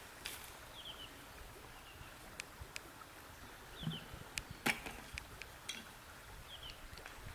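Quiet riverside outdoor ambience. A small bird gives a short falling chirp three times, and there are scattered sharp clicks, with a low knock about four seconds in and the loudest click just after.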